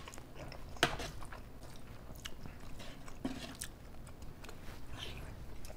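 A person chewing a mouthful of chili and rice close to the microphone, with soft wet mouth clicks and a sharp click about a second in.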